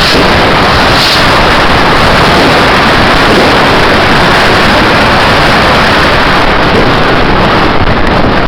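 Dense New Year's fireworks barrage: a continuous loud roar of overlapping bangs and crackles that overloads the microphone.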